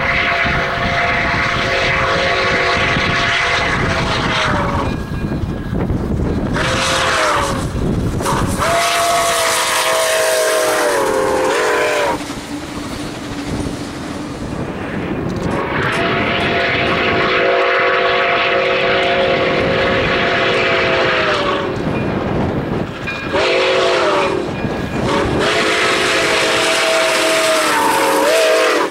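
Nickel Plate Road 765, a 2-8-4 Berkshire steam locomotive, blowing its chime whistle in six blasts: long, short, long, then long, short, long, as it approaches a grade crossing. Each blast sags in pitch as it cuts off. Wind rumbles on the microphone throughout.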